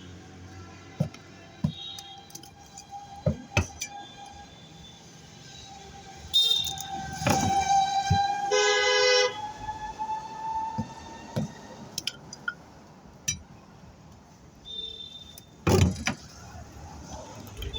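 Scattered sharp metal knocks and clanks from tyre work, over a steady engine hum that rises in pitch around the middle, with a vehicle horn sounding once, briefly, about halfway through.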